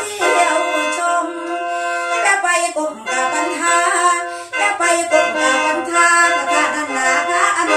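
Khaen, the Isan bamboo free-reed mouth organ, playing a lam toei melody over its own held drone notes in an instrumental passage between sung verses.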